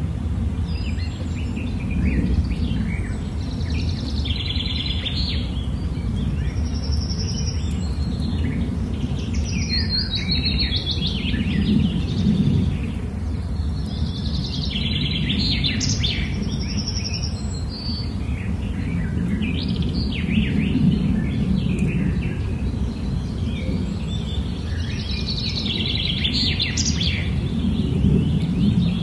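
Birds chirping and singing in repeated short phrases, with a steady low rumble underneath.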